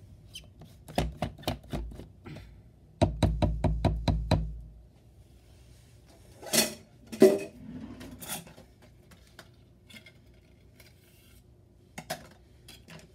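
Plastic personal-blender cup being unscrewed from its blade base: two runs of quick clicks from the plastic threads, the second faster. Then a few louder knocks as the cup and parts are set down on the stone countertop.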